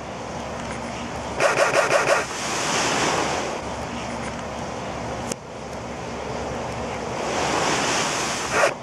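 Steady rushing noise that swells near the end as a cloud of blown sulfur powder ignites over a match into a tall flame with a whoosh. A short burst of quick pulses about one and a half seconds in.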